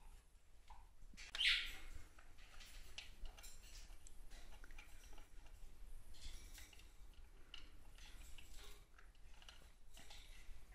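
A single short, high bird chirp about a second and a half in, over faint scattered clicking and crunching as a green-cheeked conure's beak works the spout of a plastic food tumbler and picks at pellets.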